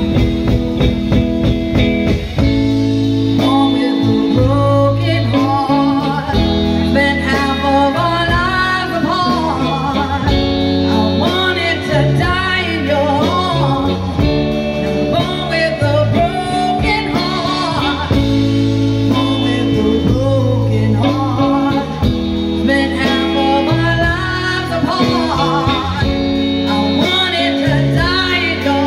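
Live band playing: a woman singing lead with electric guitar, electric bass and drums.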